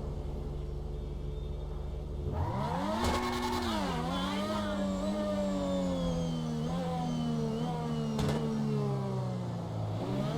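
Engine of an F1-style car idling steadily, then revving up sharply about two seconds in. Its pitch drops back and then slides slowly lower for the rest of the time, with a few small jumps.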